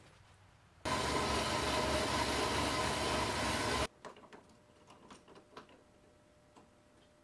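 Horizontal metal-cutting band saw running steadily for about three seconds, cutting round bar stock; it starts and stops abruptly. Then a few light clicks and knocks of the workpiece being handled at a lathe chuck.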